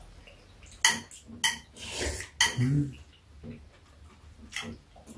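Metal spoons clinking against ceramic bowls on a metal tray during a meal: a handful of sharp, separate clinks, the loudest about one second in and again about two and a half seconds in.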